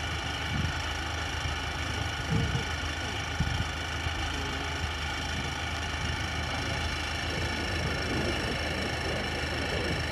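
Rice combine harvester running steadily, a constant mechanical drone with a high, even whine over a low hum, with a couple of brief louder knocks a few seconds in.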